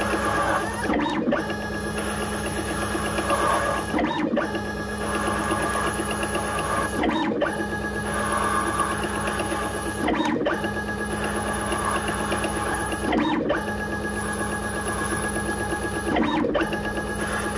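Mini CNC lathe cutting an M43x1 thread in aluminium, its spindle driven through a 2:1 gear by a 12 Nm hybrid servo motor at 300 rpm. A steady whine from the motor and drive runs with the noise of the cut, broken by a short pause about every three seconds between threading passes.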